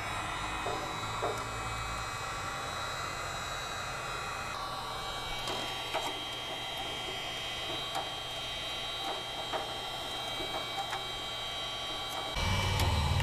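Wagner electric heat gun blowing steadily with a whining fan, with light scraping ticks as a metal scraper works old anti-slip tape off an aluminium step. Near the end a louder low rumble comes in.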